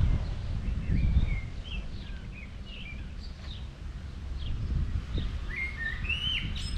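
Small birds chirping and calling, short high notes and quick glides, with a busier run of louder chirps near the end. Underneath is a low, gusting rumble of wind on the microphone, heaviest in the first second or so.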